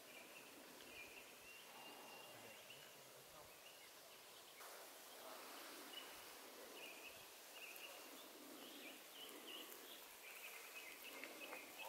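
Near silence, with faint bird calls now and then and a faint rustle from about halfway through.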